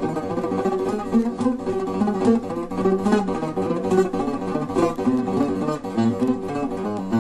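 Buzuq, the long-necked fretted lute, played in an improvised taqsim: quick runs of plucked notes over a steady ringing low note.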